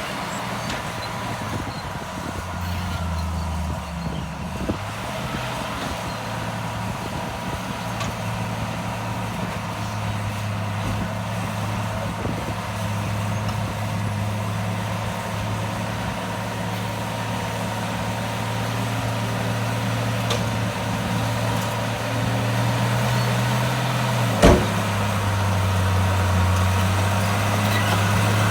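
Heavy diesel engine of earthmoving machinery running steadily, its pitch stepping up and down a few times and growing gradually louder. A single sharp knock about 24 seconds in.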